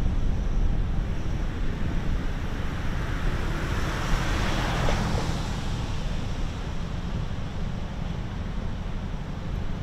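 A car passing close by on the road, its tyre and engine noise swelling to a peak about halfway through and then fading, over a steady low rumble of city traffic and wind on the microphone.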